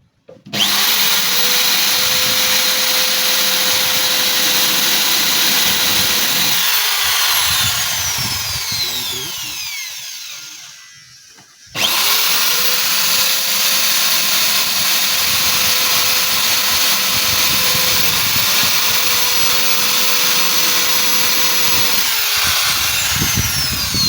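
An electric power tool's motor run twice: each run starts suddenly, holds a steady whine for several seconds, then winds down over a few seconds as the motor coasts to a stop.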